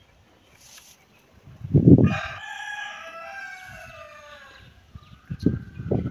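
A rooster crowing once: one long call of about three seconds, its pitch sinking slightly toward the end. A loud low thump comes as it begins, and a few more low thumps near the end.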